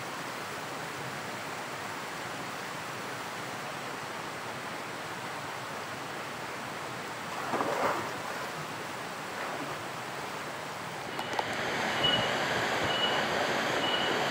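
Steady rushing of a waterfall, an even wash of water noise. It swells briefly about halfway through, and near the end it grows louder, with four short high-pitched tones at even spacing.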